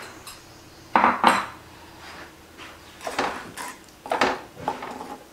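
Wooden spatula stirring thick curry gravy in a heavy pot, scraping and knocking against the pot in a few separate strokes, the strongest about a second in.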